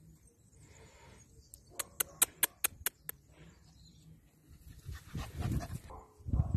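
A quick run of about seven short, high-pitched yips from a toy poodle puppy, about five a second, then low rumbling and bumping noise near the end.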